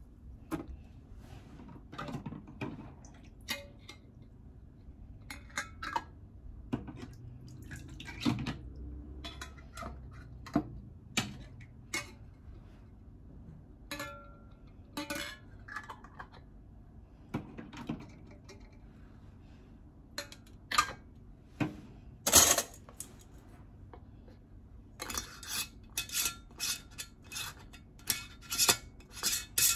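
Metal canning lids and screw bands clinking and tapping against the rims of glass quart jars of broth as they are set on and screwed down: scattered separate clicks, one sharper clink about three-quarters of the way through, and a quick run of small clicks near the end.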